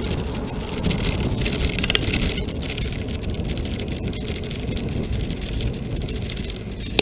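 Wind buffeting and tyre rumble on the microphone of a camera riding along on a moving bicycle, a steady loud noise with a few small knocks from bumps in the path.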